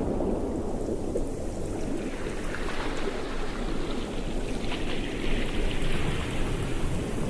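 Ocean surf: a steady low rumble of waves, with the hiss of water washing in rising from about two and a half seconds in.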